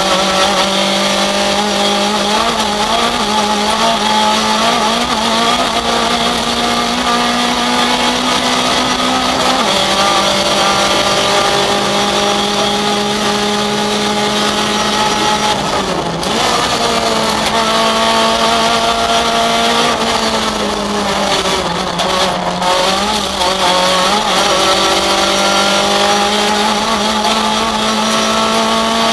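Rally car engine heard from inside the cabin, running hard under load on a special stage. Its note holds steady for long stretches and dips briefly at lifts or gear changes about halfway through and again a few seconds later.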